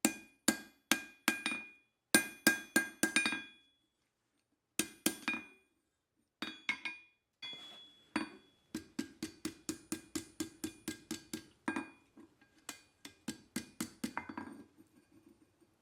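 Hand hammer striking hot leaf-spring steel on an anvil in groups of blows, each strike ringing with a clear metallic tone. A faster, steadier run of lighter blows starts about nine seconds in.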